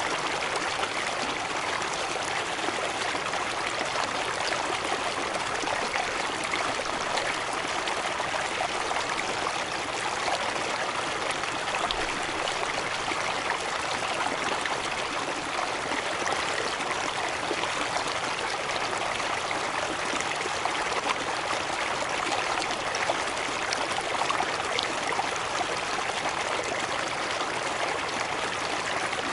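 Water running over a river cascade, a steady even rush with no break.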